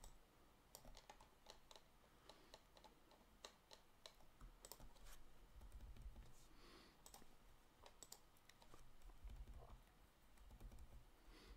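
Faint, irregular clicking of a computer keyboard and mouse as an element is nudged into place, with a few soft low thumps.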